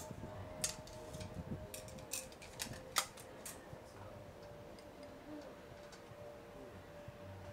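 Small sharp clicks and taps of an ear pick and tissue being handled, about seven in the first three and a half seconds with the loudest about three seconds in, over a faint steady hum.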